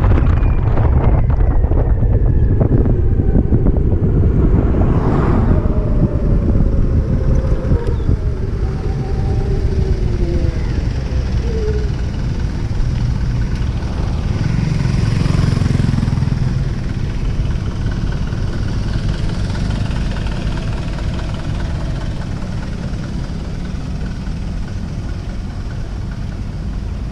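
Wind buffeting the microphone on a moving BMW C-Evolution electric scooter, with the electric motor's whine falling in pitch over the first dozen seconds as the scooter slows. About halfway a louder rumble swells and fades as another vehicle goes by, and the wind noise then eases off as the scooter rolls slowly.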